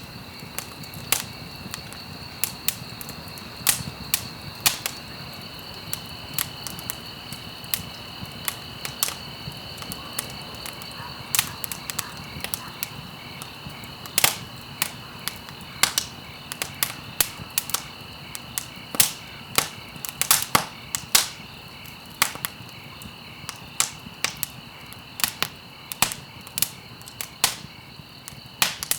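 Campfire crackling, with sharp irregular pops several times a second, over a steady high-pitched chirring of insects.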